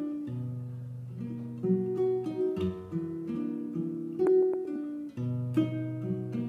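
Nylon-string classical guitar fingerpicked solo, held low bass notes ringing under plucked chords and melody notes.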